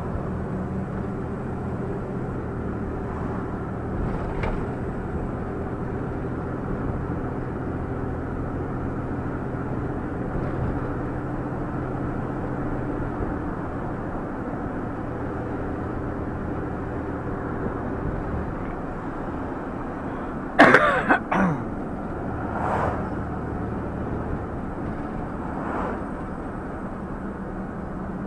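Vehicle engine running with road noise while driving; the engine note shifts a little about halfway through. About twenty seconds in there is a short, loud cough, with two fainter sounds after it.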